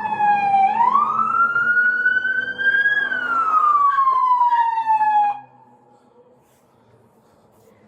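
Emergency vehicle siren wailing: its pitch falls, rises slowly for about two seconds, then falls again, and it cuts off suddenly about five seconds in.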